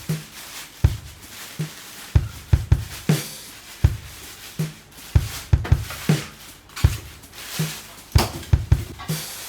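Background music with a steady drum-kit beat: bass drum and snare.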